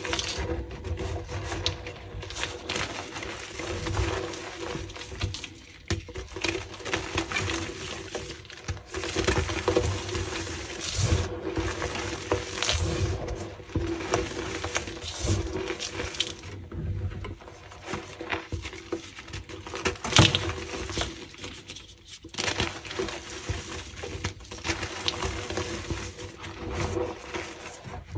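Hands squeezing and crumbling loose gym chalk powder: an irregular soft crunching and rustling, with a louder crunch about twenty seconds in.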